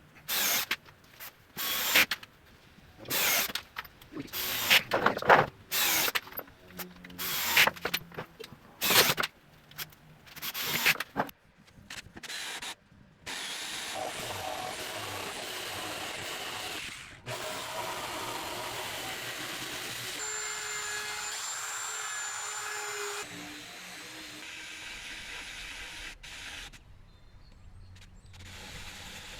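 Power drill driving screws into plywood in short, repeated bursts, followed by a longer steady stretch of machine noise.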